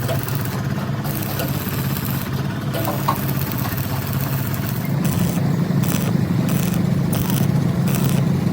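A diesel engine running steadily, growing louder about five seconds in, when a regular pulsing hiss starts above it.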